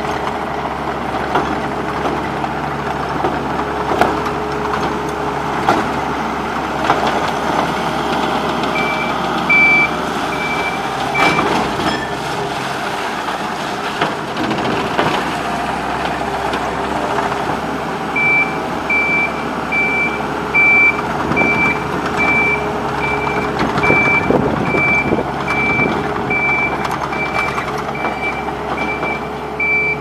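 Takeuchi TL140 compact track loader's diesel engine running as it drives on rubber tracks, with occasional knocks. Its reversing alarm beeps about one and a half times a second, briefly about a third of the way in and again through the last third.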